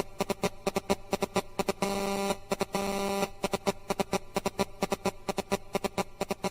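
Electronic music with a fast, even ticking beat and two held synth notes, each about half a second long, roughly two and three seconds in.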